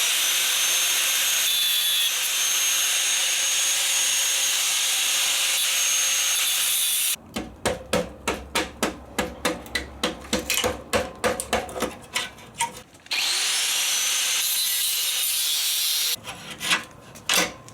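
A small high-speed power cutting tool spins up with a rising whine and cuts into a steel exhaust bracket with a steady hiss, then hand saw strokes follow at about three a second for several seconds. The power tool cuts again, and a few more saw strokes come near the end.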